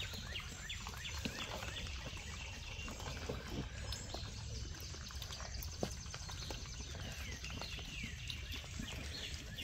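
Pigs feeding: sows eating from a plastic trough and piglets rooting for scattered feed, a faint run of small crunching clicks. Birds chirp in the background.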